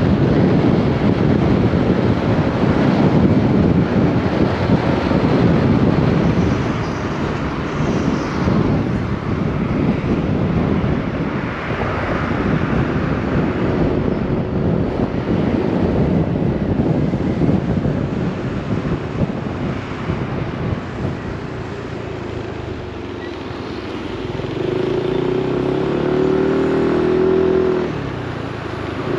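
Riding a scooter in traffic: wind rushing over the microphone and road noise, heaviest in the first half, with the scooter's engine running underneath. Near the end the wind eases and a steady engine hum comes through as the scooter slows in traffic.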